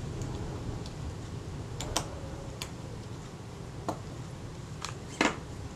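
Scattered small metal clicks and ticks, about eight spaced unevenly with the loudest near the end, as a retaining ring is seated by hand on a Kodak Retina IIIc lens shutter.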